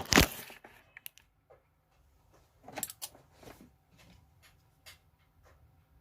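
Scattered clicks and knocks of small parts and tools being handled on a workbench, loudest at the start and again about three seconds in, with faint ticks between.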